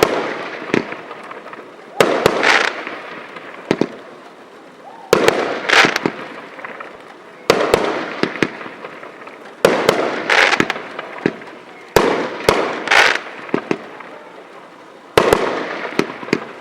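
A 36-shot firework cake firing, one sharp report every two to three seconds, each followed by about a second of hissing with scattered crackling pops that fades before the next shot.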